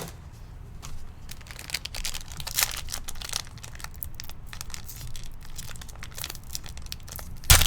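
Wrapper of a trading-card pack being crinkled and torn open by hand, in irregular crackles with a sharper snap near the end.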